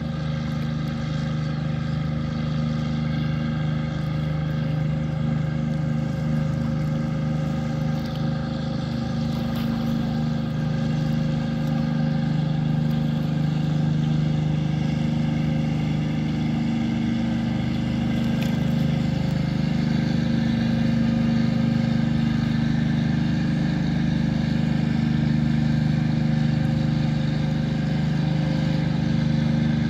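Wooden passenger launch's engine running steadily under way, a low even hum that grows gradually louder as the boat draws near.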